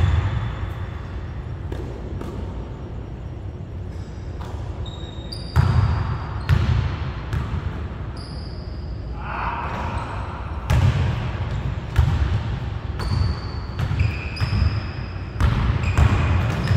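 A basketball being dribbled on a hardwood gym floor, in several runs of quick bounces, with short high sneaker squeaks on the court in between.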